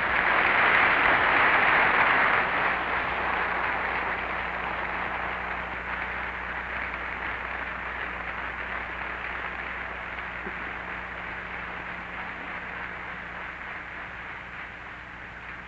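Large audience applauding. The applause is loudest in the first couple of seconds, then slowly dies down.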